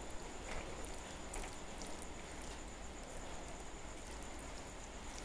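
Steady, even rain in the background, with a few soft clicks and squishes of wooden chopsticks mixing instant noodles on a plate near the start.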